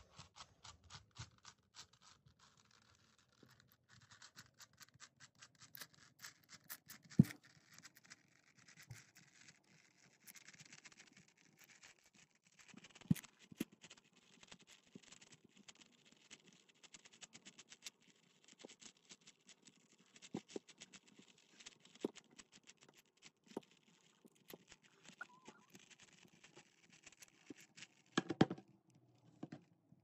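Plastic 8x8 Rubik's cube being scrambled by hand: its layers click and rattle in quick, irregular runs as they are twisted, with a few louder knocks.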